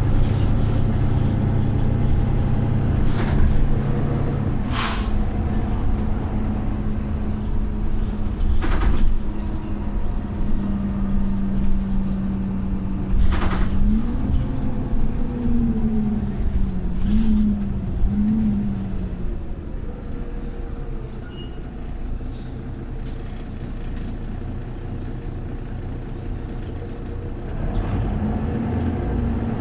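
Mercedes-Benz Citaro O530 bus engine running, with a pitched note that holds steady and then rises and falls several times. Several short, sharp hisses of air from the bus's air system, the "sneezing" of the air brakes, break in. The engine goes quieter for a few seconds near the end, then picks up again.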